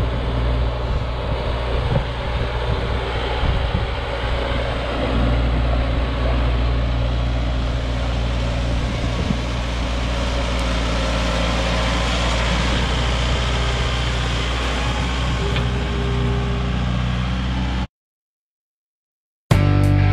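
Tractor diesel engine running steadily under load while its front loader pushes a heap of dirt and sod. The sound cuts off abruptly about eighteen seconds in.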